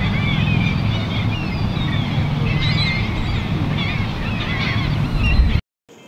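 A flock of gulls calling, many short cries that rise and fall and overlap one another, over a steady low rumble. It all cuts off suddenly near the end.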